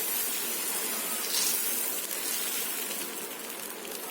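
Steady sizzling hiss on a heated dosa griddle, with a louder burst of hiss about a second and a half in.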